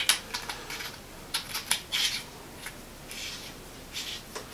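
Coast rechargeable flashlight being twisted apart by hand: a scattering of small clicks and short scraping rasps from its body and threads.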